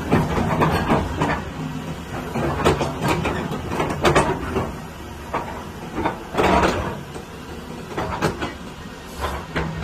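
Doosan DX225 excavator's diesel engine running steadily while the hydraulics move the boom and bucket, with repeated surges of hydraulic hiss and whine each time the boom or bucket moves.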